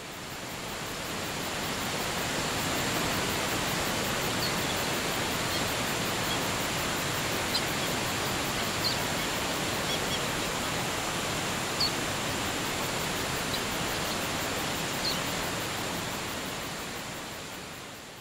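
Steady rushing water of a waterfall, fading in at the start and out near the end, with a few short high bird chirps over it.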